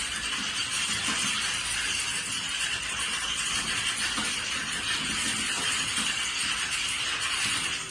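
Many computer keyboards being typed on at once, as in a typing exam hall: a dense, steady clatter of overlapping key clicks with no pauses.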